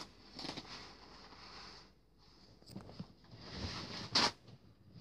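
Handling noises at a table: irregular rustling and scraping, with one sharp knock or crackle about four seconds in.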